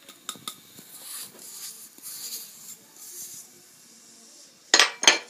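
Kitchenware handled while flour goes into a mixing bowl: a few light clicks and a soft scraping, rustling hiss, then two sharp knocks about a third of a second apart near the end, the loudest sounds.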